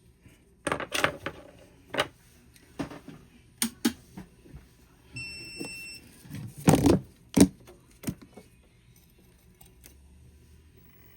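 Small tools clicking and tapping on an electronics workbench during soldering touch-up, in irregular sharp knocks, loudest about seven seconds in. A short electronic beep of just under a second sounds about five seconds in, the kind a soldering station gives.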